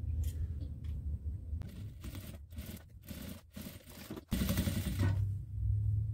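Fabric and plastic layers shuffled and clicked into place under a sewing machine, over a steady low motor hum. About four seconds in, the machine starts stitching, running steadily through the layered fabric and plastic.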